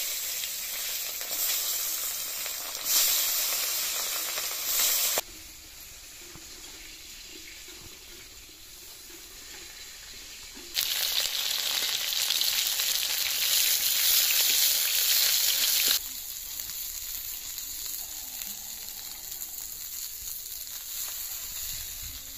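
Fish pieces frying in hot oil in an iron kadai, a steady sizzle with some spatula stirring. The sizzle is loud at the start and again from about 11 s in for about five seconds, and quieter between those stretches and after.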